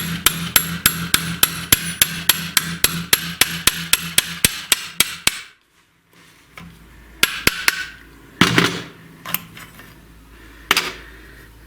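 Rapid, evenly spaced metallic tapping, about four strikes a second, that stops abruptly about five seconds in, followed by a few scattered knocks and clatter of tools on metal.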